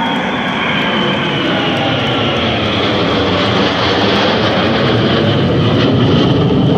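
A formation of jet aircraft, one large jet with four fighter jets, flying overhead: a steady jet roar that grows louder, with a faint high whine slowly falling in pitch.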